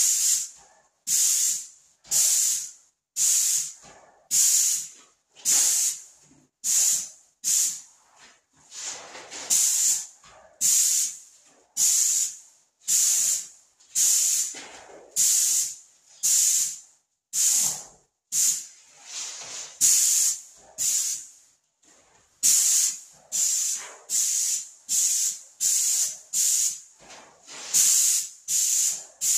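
Graco airless spray gun spraying paint in short triggered passes: a sharp, high hiss that starts suddenly and tails off, repeated about once a second with brief gaps as the trigger is pulled and released.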